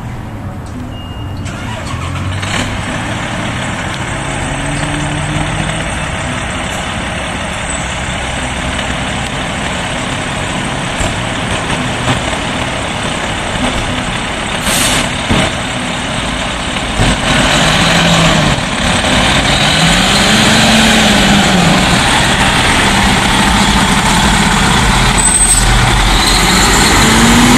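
The diesel engine of a Pierce Arrow XT fire pumper running and growing steadily louder as the truck pulls out and passes close by. In the second half a low tone rises and falls several times, and it climbs again near the end.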